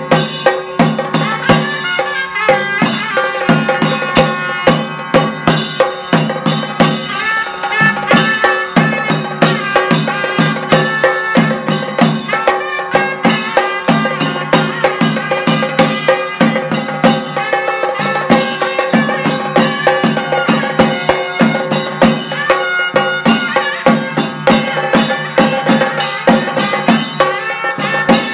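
Chenda drums beaten hard with curved sticks in a fast, steady rhythm, with a wind instrument playing a melody of held, wavering notes over the drumming.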